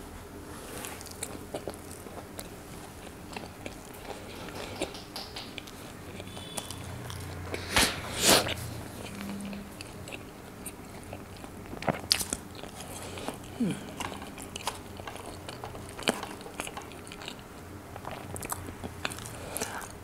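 A person chewing and biting roti dipped in curry gravy: soft wet chewing and lip smacks, broken by a few sharper crunchy bites, the loudest about eight seconds in.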